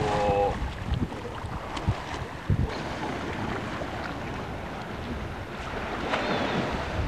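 Wind buffeting the camcorder microphone in irregular gusts, over a steady rushing hiss of wind and sea.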